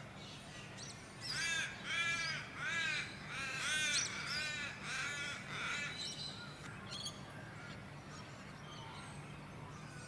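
A bird calling: a quick series of about eight loud calls, close to two a second, from about a second in to about six seconds in, with fainter calls on either side. A steady low hum runs underneath.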